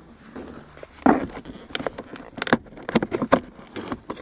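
Sharp plastic clicks and rattles from a Volvo S40/V40 centre console switch panel being pushed up and worked free of its retaining clip, a series of separate knocks starting about a second in.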